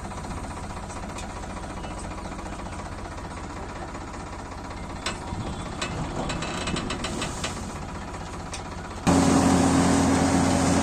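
Tractor-mounted hydraulic rotary road broom sweeping a gravel road, the tractor engine running under it while the brush scatters stones that tick and click against it. About nine seconds in the sound jumps suddenly louder, with a steady drone.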